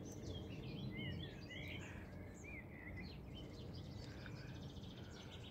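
Small birds chirping in quick short calls, thickest in the first few seconds and thinning out after. Under them runs a faint steady low rumble from a tractor working the far field.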